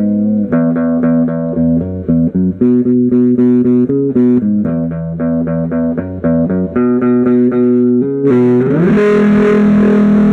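Electric guitar played through a 1964 Marshall JTM45 2x12 combo amp with KT66 power tubes: a riff of repeated picked notes and chords. About eight seconds in, it changes to harder strummed chords with a brighter, fuller tone that ring on.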